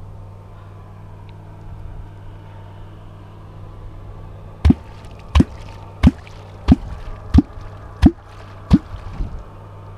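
Catfish kvok (Perm kvok) struck into the water seven times in a steady rhythm, about one and a half strokes a second, starting about halfway in; each stroke is a sharp smack with a deep hollow gulp. This is the call sound meant to draw catfish up to the bait.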